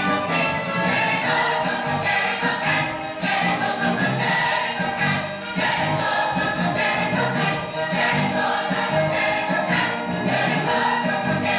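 A chorus of young voices singing together over an instrumental accompaniment.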